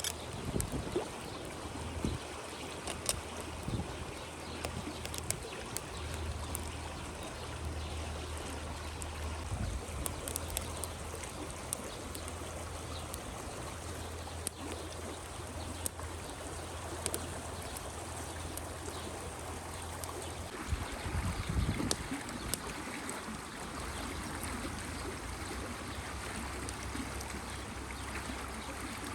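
Rushing river flowing steadily, with scattered faint sharp crackles from a wood campfire. A few low thumps come about three-quarters of the way through.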